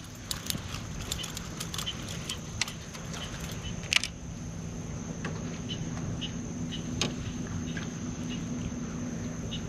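Scattered light clicks and small metallic rattles of an inline spinner lure and its hook as a small redfish is swung aboard a kayak on the line and handled. The clicks are densest in the first few seconds, with single louder clicks about four and seven seconds in.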